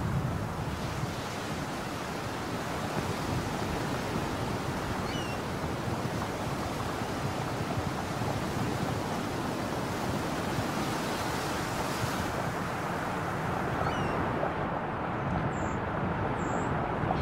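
Steady rushing noise of wind and distant ocean surf, with a few faint, brief high chirps.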